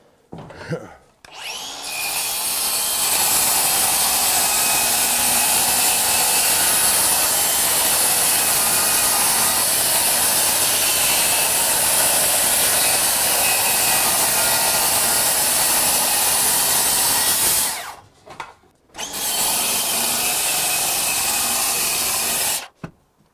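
Cordless circular saw ripping a long sheet of particle board along a guide rail: one long steady cut of about sixteen seconds, a brief stop, then a second shorter run to finish the cut.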